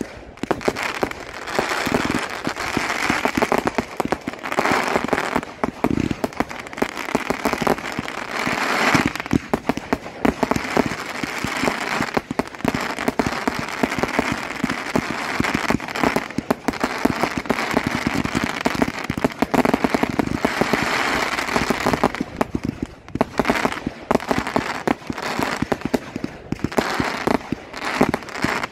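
Bright Star 'Hermes' 196-shot compound firework cake firing continuously: a dense, unbroken run of shots and aerial bursts, with long stretches of crackling.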